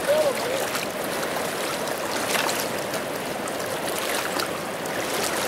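Steady rushing of the Kenai River's fast current along the shallow bank edge.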